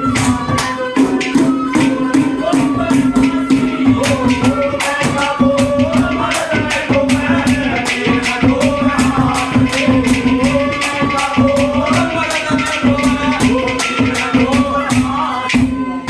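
Haryanvi ragni folk music, instrumental: a steady low drone under a wavering melody, over a quick, even beat of hand drum and jingling percussion.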